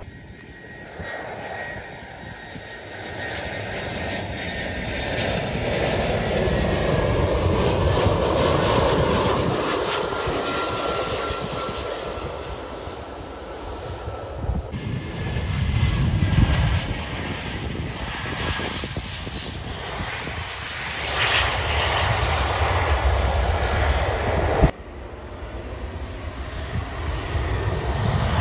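Jet airliner engines heard across the airfield, swelling and fading as aircraft pass, in separate clips that change abruptly about halfway and again near the end. The sound rises toward the end as a Boeing 737 comes in low on approach to land.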